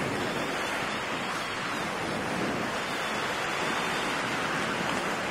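Steady rush of wind and airflow over the microphone of a paraglider in flight in a strong headwind.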